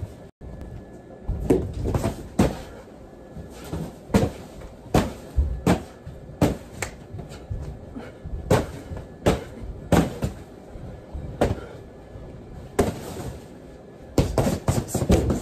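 Irregular slaps and thuds as a man hits, grabs and body-slams a large inflatable Grinch decoration, about one hit every half second to second, with the blown-up vinyl thumping and rustling. The hits come thicker near the end.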